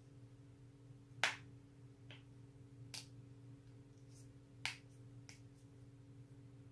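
A person's neck joints cracking: a series of sharp pops, three loud ones with a couple of fainter pops in between, over a steady low hum.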